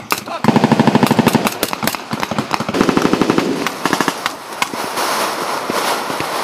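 Rifle and machine-gun fire in a firefight drill: a long rapid burst of automatic fire about half a second in, a second burst about three seconds in, and scattered single shots between and after.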